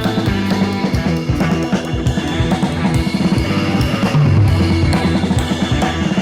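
Rock music with drums, bass and distorted electric guitar, played at a steady driving beat.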